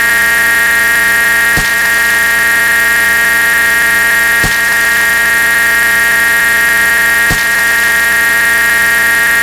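A dense, loud, unchanging drone of a huge number of sound effects stacked on top of one another, heard as many steady tones with a shrill one standing out. A brief click or knock comes through about every three seconds.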